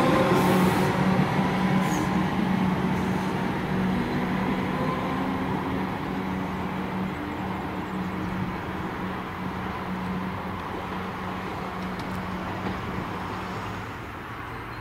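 Comeng electric train moving along the platform, its motor whine rising in pitch over about the first second. A steady low hum follows and gradually fades as the train draws away.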